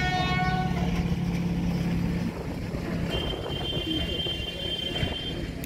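A small locomotive's horn sounds a steady note that ends about half a second in, over the low steady drone of its running engine, which fades out a little after two seconds. Later a higher steady signal tone sounds for about two seconds.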